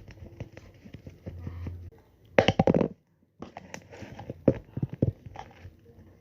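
Handling noises from unboxing sticker packs: a run of light taps and clicks, with a louder dense cluster of knocks about two and a half seconds in and a short break just after.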